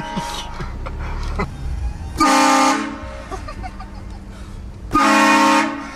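Vehicle-mounted train horn sounding two short blasts about three seconds apart, each a chord of several steady tones. A low engine rumble fills the gaps between them.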